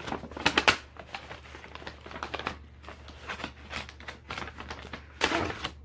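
Brown paper gift bag rustling and crinkling as hands dig into it and pull out what is inside, with louder crinkles about half a second in and again near the end.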